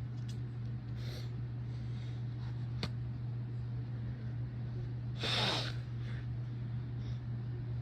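A person's induced sneeze about five seconds in, a short noisy burst, with a faint breath about a second in and a sharp click near three seconds. An electric fan hums steadily underneath.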